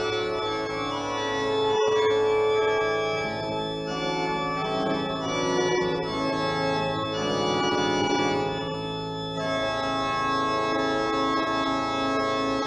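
Organ playing slow, sustained chords, the harmony changing about two seconds in and again after about nine seconds.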